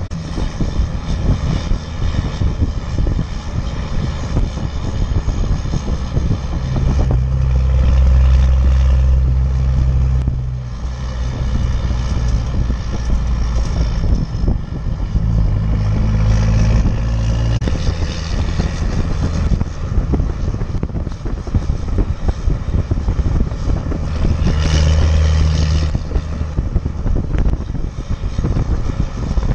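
12-valve Cummins 5.9 inline-six turbo-diesel in a Dodge Ram 3500 running under load while towing about 12,000 lb, through a 5-inch exhaust. Its low drone swells louder three times, about 7, 15 and 25 seconds in.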